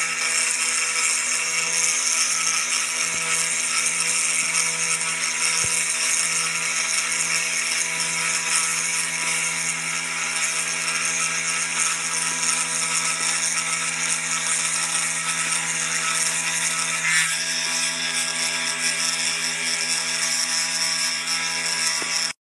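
Spindle of a kit-built CPC-RC55 desktop CNC engraving machine running and carving wood: a steady high whine over a dense cutting hiss, with a small change in tone about three-quarters of the way through.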